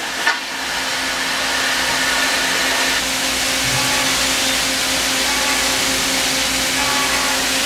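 Makino A55 CNC horizontal machining center running under power: a steady machine hum with a constant hiss. A brief knock sounds just after the start.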